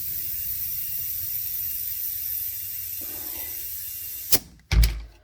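Compressed air hissing steadily through an air chuck into a car tire being refilled slowly from a compressor set low, at about 60 psi. The airflow stops about four seconds in with a sharp click, followed by a loud thump just before the end.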